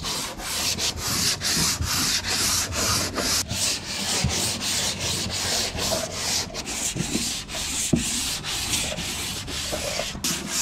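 Hand sanding the black-painted hull of an aluminum boat with a sanding block, in quick back-and-forth strokes, a few a second. The coat of paint is being sanded smooth before it is recoated.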